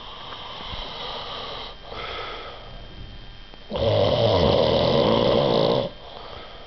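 Snoring: two softer snoring breaths, then one loud snore about four seconds in that lasts about two seconds.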